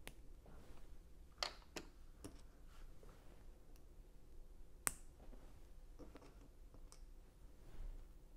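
Lego plastic pieces clicking and tapping as they are handled and pressed together: a few scattered faint clicks, with a sharper one about five seconds in.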